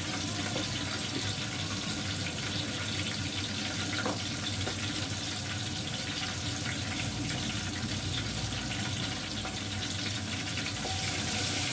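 Garlic and ginger sizzling steadily in hot oil in a pot on a gas burner, an even frying hiss.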